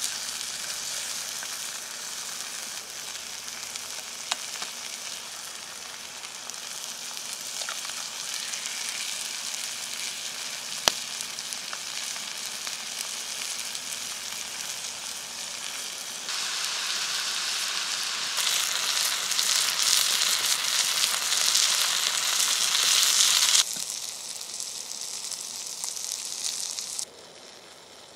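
Food sizzling in oil in a cast-iron skillet set on a campfire, a steady hiss with a few sharp clicks. The sizzle grows louder about two-thirds of the way in, then drops away sharply near the end.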